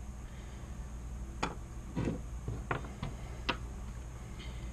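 Light clicks and taps of small steel tools and trigger-group parts being handled and set down on a wooden workbench, about five of them spread over a couple of seconds in the middle, over a faint steady hum.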